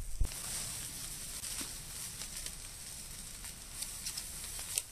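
Sausages sizzling in a skillet: a steady hiss with a few small pops.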